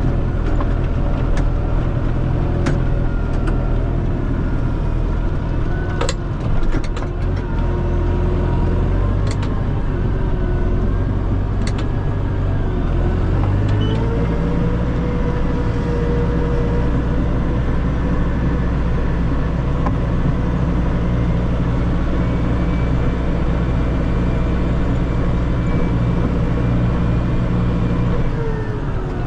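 A Massey Ferguson 5445 tractor's Perkins 4.4-litre four-cylinder common-rail diesel runs steadily, pushing a snowplow. A few sharp clicks come in the first twelve seconds, and the engine note changes about halfway through, then holds.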